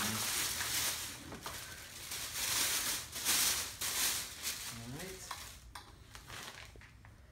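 Clear plastic packaging sheet rustling and crinkling as it is pulled off a kayak hull, in several loud swishes, with a short rising squeak about five seconds in; the rustling dies away near the end.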